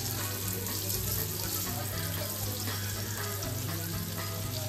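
Masala-coated fish slices shallow-frying in oil on a cast-iron tawa: a steady sizzle of hot oil.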